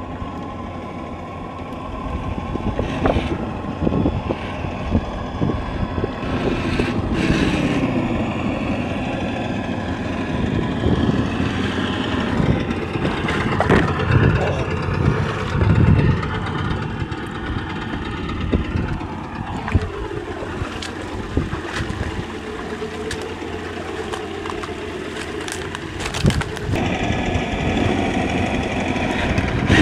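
Traxxas TRX-4 RC crawler's electric motor and gearbox whining, rising and falling in pitch as the throttle is worked, with occasional knocks of the tyres and chassis against the ground.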